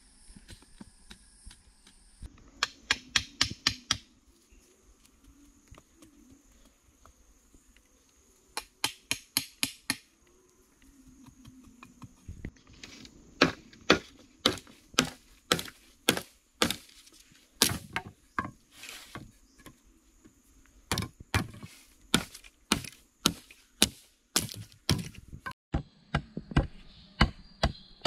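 Machete blade chopping into green bamboo poles in quick runs of sharp, separate strikes, with short pauses between the runs.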